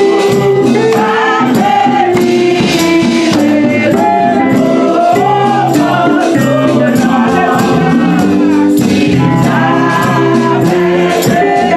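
Gospel music: singing over a steady tambourine beat.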